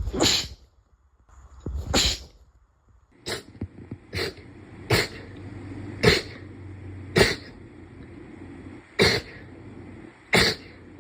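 A run of about nine sneezes. The first two each come after a faint drawn-in breath, then the rest follow in a quick series, one every second or two.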